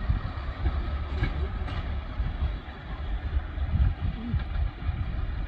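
Class 108 diesel multiple unit's diesel engines running as the train pulls away, a steady low rumble.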